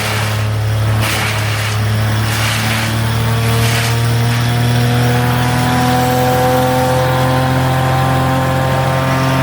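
Mitts and Merrill wood chipper's engine running, its speed slowly rising as the throttle is turned up to bring the chipper up to working RPM. Short bursts of rushing noise come in the first few seconds.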